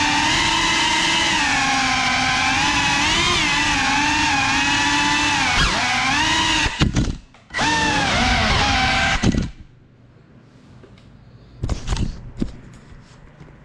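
FPV quadcopter's brushless motors whining, the pitch rising and falling with the throttle. About seven seconds in they drop out for a moment, then spin up again, and they cut off sharply about two seconds later as the quad lands and disarms. A few short knocks and clatter follow near the end.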